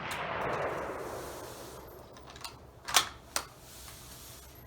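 The echo of a rifle shot rolling away and fading over the first couple of seconds, then two sharp cracks about half a second apart.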